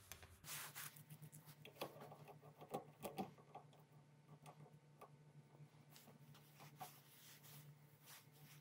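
Faint metallic clicks and scraping from a small pipe cutter being turned around a thin steel rod to score it, over a low steady hum.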